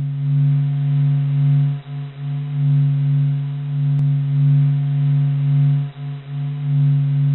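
Sonified recording of the Sun: a monotone low hum with a few faint higher overtones, slowly swelling and fading in loudness, dipping briefly twice.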